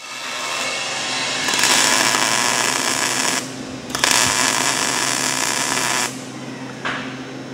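Arc welding on galvanized steel studs: two welding runs, the first stopping a little past three seconds in and the second starting about half a second later and stopping about six seconds in. A steady low electrical hum runs underneath.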